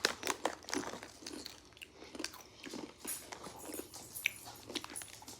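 Potato chips being crunched and chewed, a run of short crisp crackles.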